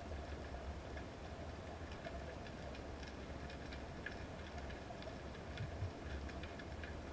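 Underwater ambience picked up by a camera in a waterproof housing: a steady low rumble with faint, irregular clicks and crackles scattered through it.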